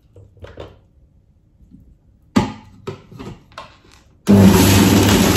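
A few plastic knocks and clicks as the food pusher is fitted into the feed chute of a Bosch MES3500 VitaJuice 3 centrifugal juicer, then about four seconds in the 700 W motor switches on and runs loud and steady with a low hum as the pusher presses the vegetables in.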